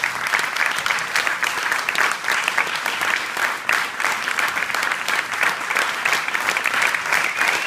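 Audience applauding, dense steady clapping from many hands.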